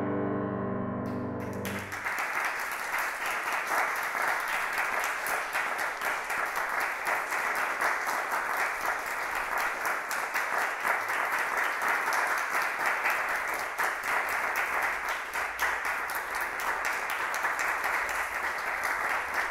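A grand piano's final chord rings on and stops about two seconds in, giving way to an audience applauding steadily for the rest of the time.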